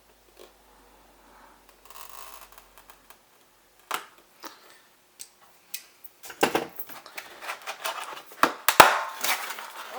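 Cardboard box and plastic packaging being opened and handled by hand: scattered light knocks and a short rustle at first, then busier rustling and several louder knocks in the second half.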